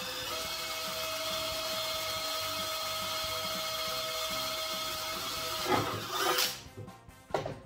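Electric drill running at low speed with a steady whine while boring a hole in an aluminium cover, followed near the end by a few louder scraping knocks.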